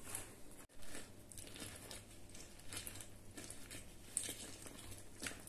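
A lemon half being twisted and pressed by hand on a reamer-style lemon juicer: faint, irregular squelching and scraping of rind and pulp against the ridges. The sound cuts out briefly just under a second in.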